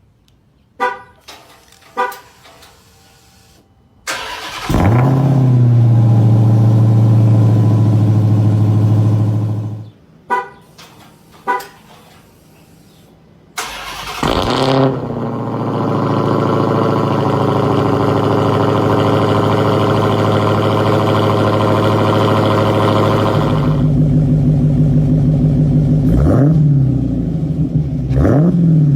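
A car gives two short horn-like chirps, then its engine starts with a rising flare and runs loud at a steady high idle for about five seconds before shutting off. The same chirps and start come again. This time the engine runs on, drops to a lower idle, and is revved twice near the end.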